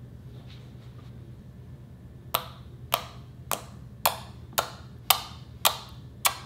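Fingertips poking into a pad of glossy slime, each poke giving a sharp, short pop: eight pops, about two a second, starting a couple of seconds in, over a low steady hum.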